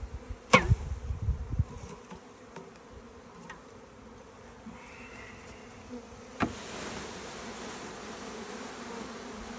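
Package of honeybees buzzing steadily while the package box is handled, with a few dull knocks near the start. A sharp knock comes about six and a half seconds in, after which the sound turns louder and hissier.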